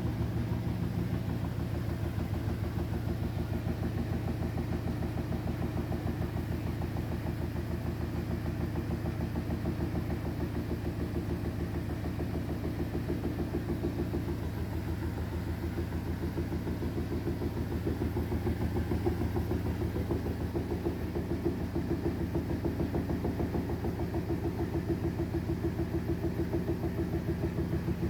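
Profilo CGA142X0TR washing machine drum turning: a steady low rumble with a fast, even pulse that keeps up throughout.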